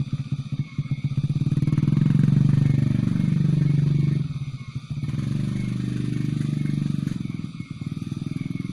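A small engine running close by with a rapid pulsing note. It gets louder and its pitch shifts about two seconds in, drops back for a moment around the middle, then runs steadily again.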